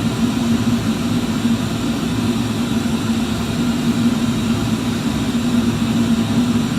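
Flameworking bench torch burning: a steady rushing roar with a constant low hum beneath it, holding even throughout.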